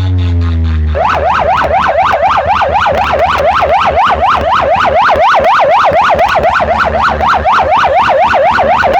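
Siren sound effect in a dance music track, wailing rapidly up and down about four times a second over a steady beat and bass, starting about a second in after a few falling synth tones.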